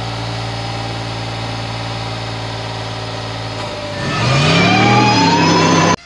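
Car engine sound effect for the DeLorean time machine: an engine idling steadily, then about four seconds in revving up louder with a rising whine, cut off abruptly at the end.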